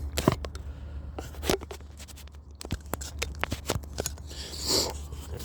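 Close handling noise: a run of sharp clicks, scrapes and short rustles, like a phone being fiddled with in its holder, over a steady low hum.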